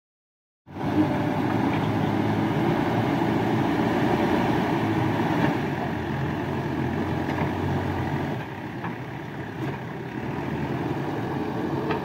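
JCB 3DX backhoe loader's diesel engine running steadily. It starts abruptly under a second in and drops somewhat in level about eight seconds in.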